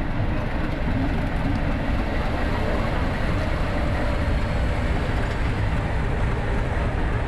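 Diesel locomotive running past at shunting speed, its engine a steady rumble with a faint steady tone.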